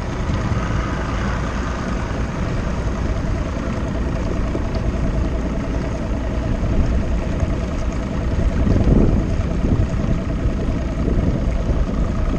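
Bass boat's outboard motor running at low speed: a steady engine drone that swells briefly about nine seconds in.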